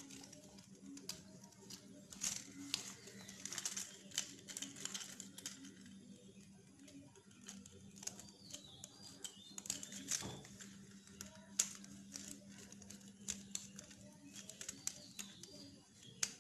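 Faint clicks, ticks and rustles of insulated wire and a plastic switchboard being handled as wire loops are fitted onto the brass socket terminals, over a steady low hum.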